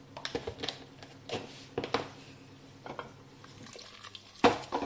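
Metal kitchenware clinking against a pressure cooker: a string of short, sharp clinks and knocks, the loudest near the end.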